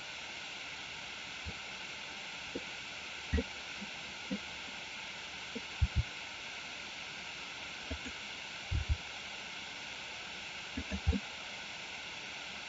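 Steady microphone hiss with soft, low clicks and knocks of computer keys and a mouse scattered through it, some in quick pairs.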